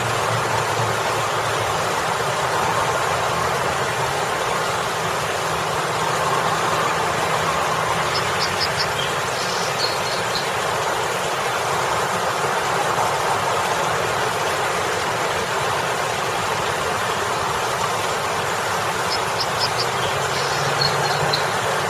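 Water spilling from a boulder fountain into a pool, splashing steadily, over the low hum of road traffic that swells as vehicles pass, one of them a pickup near the start. A few short high chirps come twice, about eight and nineteen seconds in.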